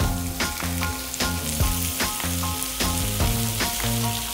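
Bone-in beef steak sizzling as it sears on a hot ridged grill pan, with background music with a steady beat playing over it.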